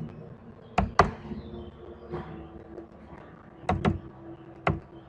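Computer keyboard keys being typed in short spurts: sharp clicks, two about a second in, two just before four seconds and one near the end, over a faint steady hum.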